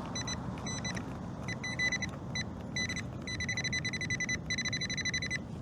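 Metal detector beeping on a buried target: a single high electronic pitch in short pulses that come in spurts, then turn rapid and almost continuous in the second half as it zeroes in.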